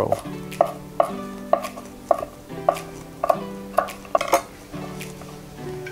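Kitchen knife chopping fresh cilantro on a wooden cutting board, sharp knocks about twice a second, stopping after about four and a half seconds. Background music with steady held notes underneath.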